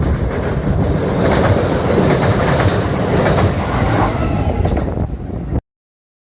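Kintetsu electric train passing close by, its wheels clattering over the rail joints in a clickety-clack. The sound cuts off abruptly about five and a half seconds in.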